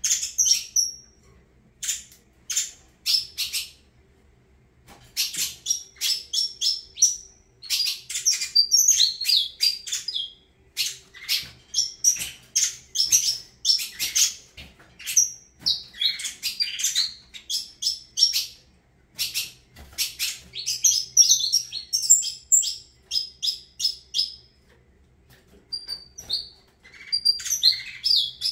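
Saffron finch (canário-da-terra) singing in bursts of rapid, high chirping notes, with brief pauses between phrases.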